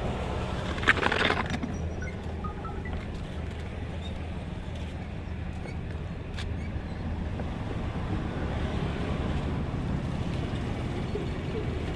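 Steady low rumble of road traffic. About a second in, a brief, louder noisy rustle stands out.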